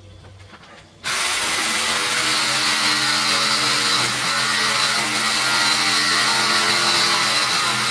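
A power tool starts suddenly about a second in and runs steadily at full speed, cutting out old pipework.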